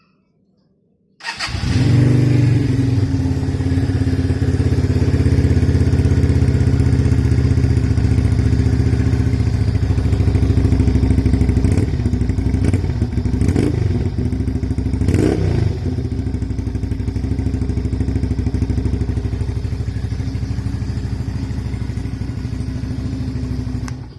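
Italjet Buccaneer motorcycle engine catching about a second in and running through its exhaust at a steady idle, blipped three quick times midway, then shut off abruptly at the end.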